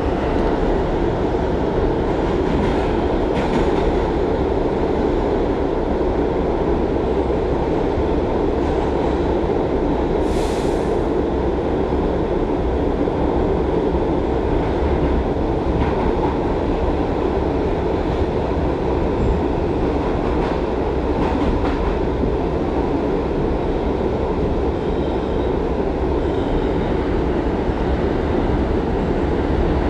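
Inside a moving R62A subway car: a steady rumble of wheels on track and running gear. There are a few faint clicks and a brief high hiss about ten seconds in.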